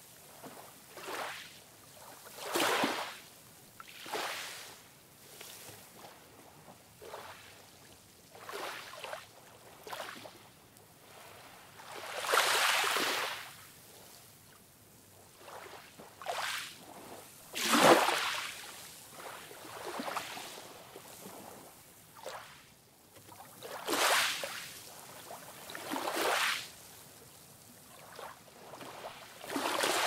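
Small ocean waves breaking and washing up a sandy beach, each surge of surf rising and fading every few seconds, the loudest a little past the middle.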